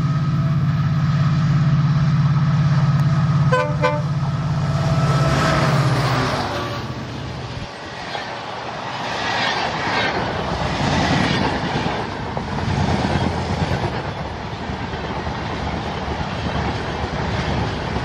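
WDP-4D diesel locomotive's EMD two-stroke V16 engine running past at speed with a deep steady drone, with a brief horn toot about three and a half seconds in. From about six seconds the passenger coaches roll by, their wheels clattering in recurring surges.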